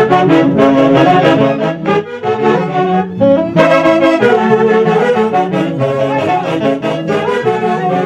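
Band of saxophones and brass playing dance music, many instruments sounding held notes together.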